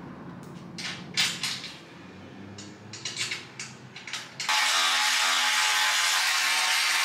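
A hand ratchet clicking in short strokes on a skid-plate bolt, then a cordless power tool starts about four and a half seconds in and runs steadily at one speed, driving the fastener.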